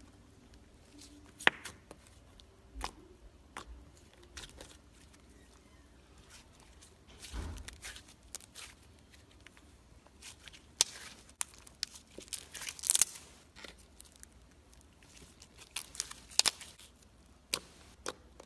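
Slime being pressed, stretched thin until it tears, and poked by hand: irregular sticky pops, crackles and small tearing sounds, thickest and loudest a little past halfway.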